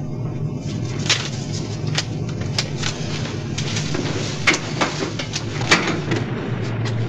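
Film sound-effects bed of a steady low hum under a rushing noise, with sharp clicks or knocks scattered through it, about half a dozen of them.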